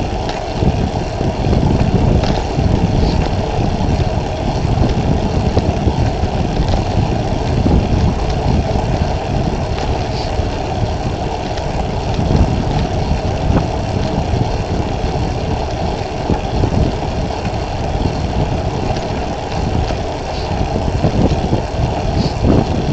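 A vehicle running on the road: a steady low rumble of engine and road noise that wavers in level.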